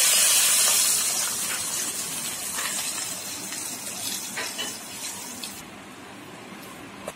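Hot tempering oil with dried red chillies, curry leaves and seeds poured into a bowl of pepper rasam, sizzling loudest at first and dying down over the next few seconds, the hiss fading out about five and a half seconds in.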